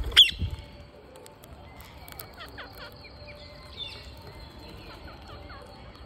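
Indian ringneck parakeets calling: one sudden loud, sharp squawk at the very start, then soft, short, falling chirps scattered through the rest.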